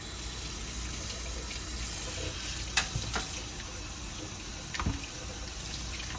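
Kitchen tap running steadily into the sink as canned black beans are rinsed, with a few light knocks around the middle.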